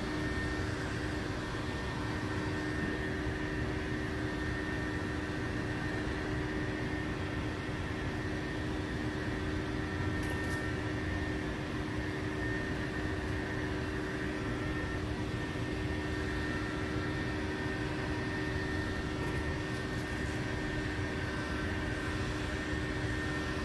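Electric heat gun running steadily: a constant rush of blown air with a steady low hum and a fainter high whine from its fan motor. It is post-heating vinyl wrap film, holding it at a high temperature to lock the film into the curves so it doesn't lift.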